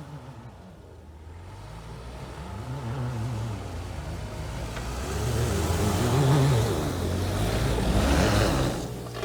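An off-road 4x4's engine revs up and down in surges while its tyres churn through snow. The rush of spinning tyres and thrown snow builds loud from about halfway and stops suddenly near the end.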